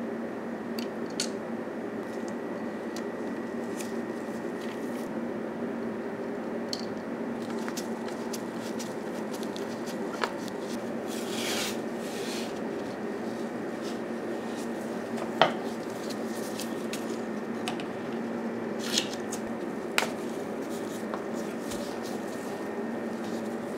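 Small hand-work sounds at a bench over a steady hum: a short ripping hiss about halfway through as blue masking tape is pulled off its roll, and several sharp clicks and taps of tools and parts, the loudest about two-thirds of the way in.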